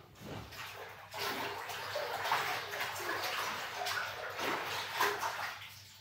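A hand swishing laundry detergent around in a bathtub of lukewarm water: steady sloshing and splashing that builds about a second in and eases off near the end.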